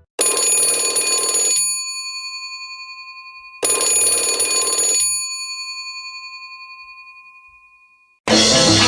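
Stock ringtone of an Alcatel OneTouch M'POP 5020D phone: a bell-like chime struck twice, about three and a half seconds apart. Each strike is a short clang followed by ringing tones that fade slowly. Near the end the next ringtone cuts in, a Latin-style percussive tune.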